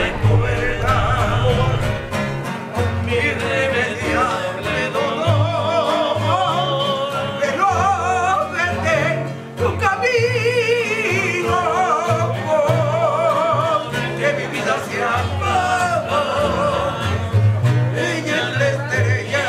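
Background music: a song with a wavering, held vocal line over a stepping bass line.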